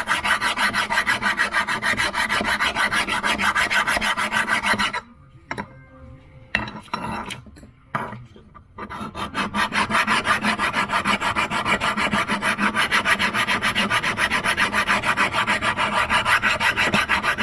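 The cast metal base flange of a Holley 94 carburetor being abraded flat by hand: fast, even back-and-forth rasping strokes, several a second. About five seconds in the strokes stop for a few seconds of light clattering, then start again.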